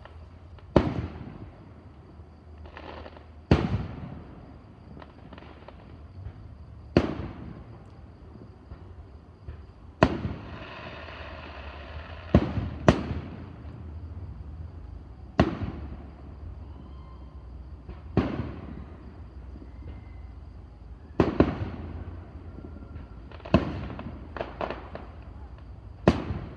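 Aerial fireworks shells bursting: about a dozen sharp booms, one every two to three seconds, each trailing off in a rolling echo.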